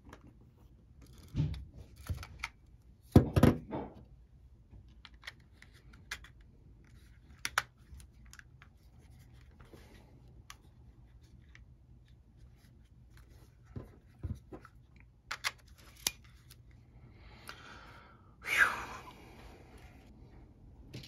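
Plastic and metal parts of a Canon EOS M camera body being handled and pressed together by hand: scattered small clicks and taps, with two louder knocks in the first few seconds and a short rushing noise near the end.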